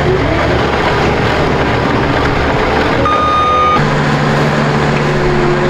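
Diesel engines of a skid steer and an asphalt paver running loudly and steadily. A single backup-alarm beep sounds about three seconds in, lasting just under a second.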